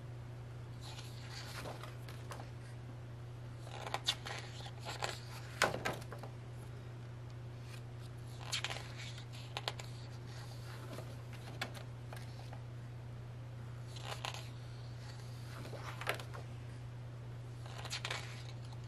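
Pages of a photobook being turned and handled: short paper rustles and soft clicks every few seconds, over a steady low hum.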